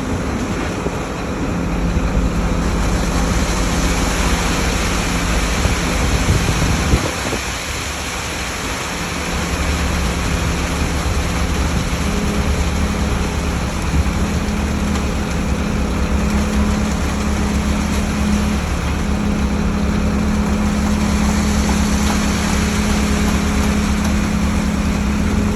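Heavy engine of a ready-mix concrete truck running steadily under load, with a steady hum and a noisy wash over it. It dips briefly about seven seconds in, then runs steady again.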